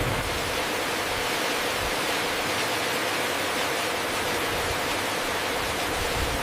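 Steady rushing noise, an even hiss that does not change.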